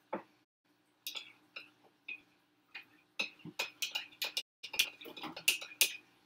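Sharp clicks and light clatter of cookware being handled on a gas stove, a few at first and then a quick run of them in the last three seconds, over a faint steady hum.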